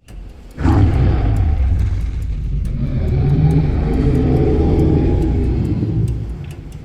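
A deep, drawn-out dinosaur bellow, a film-style Jurassic Park sound effect: it starts suddenly about half a second in, holds low and steady, and fades away near the end.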